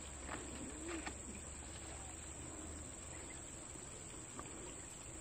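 Quiet outdoor ambience of a steady high insect drone, with a faint low bird call about a second in and a few soft clicks.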